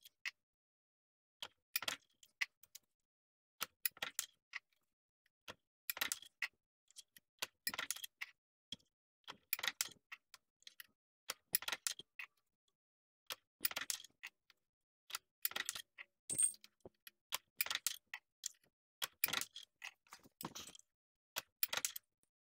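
Small aluminium brackets clicking and clinking against the steel of a small bench-top press brake as they are set against the backstop and bent one after another. The clusters of sharp metallic clicks come about every two seconds.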